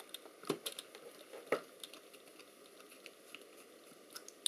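Faint, scattered clicks and light scrapes of the plastic Polaroid Vision camera body being handled and worked with a small screwdriver, with two slightly louder clicks in the first couple of seconds.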